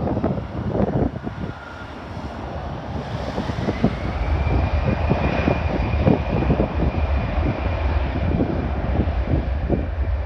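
Aircraft engines passing, a whine rising and then holding steady over a deep rumble that builds from about four seconds in. Heavy wind buffeting on the microphone throughout.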